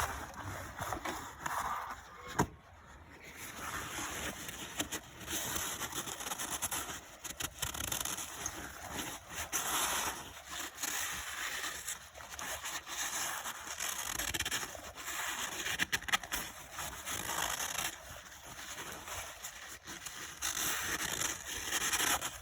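Paper towel wiping and rubbing over a piston top in an open engine cylinder, in irregular back-and-forth strokes.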